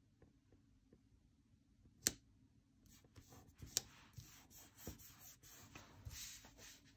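Fingers pressing and rubbing a sticker down onto a paper planner page: faint paper rubbing and rustling with light ticks, and one sharp tap about two seconds in.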